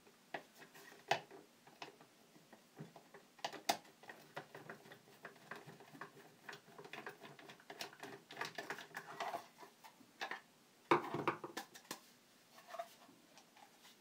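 Screwdriver backing a screw out of a plastic table-fan motor housing, with irregular small clicks and scrapes of plastic. A louder clatter of knocks about eleven seconds in as the housing cover is worked loose.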